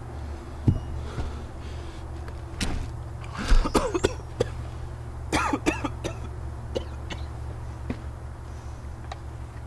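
Chunks of split wood knocking as they are moved and dropped, and a man coughing twice, over a steady low engine hum.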